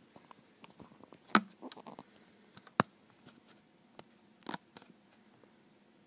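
Handling noise from a Nokia X3-02 mobile phone moved about in the hand: scattered clicks and knocks with light rustling. The sharpest clicks come about a second and a half in and near three seconds, with a double knock about four and a half seconds in.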